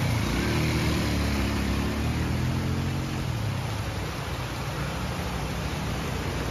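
ATV engines running as the quads drive through a shallow stream; the engine note rises in the first second, holds, and eases off about three seconds in. Under it, a steady rush of water pouring over a low weir.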